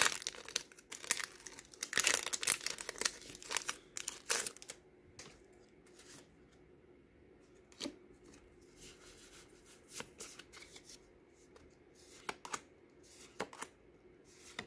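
Foil wrapper of a Pokémon trading card booster pack crinkling and tearing as it is ripped open, for the first four seconds or so. After that come a few soft rustles and clicks as the cards are slid out and handled.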